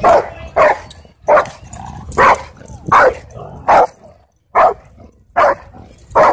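A dog barking over and over at a steady pace, about one short bark every three-quarters of a second.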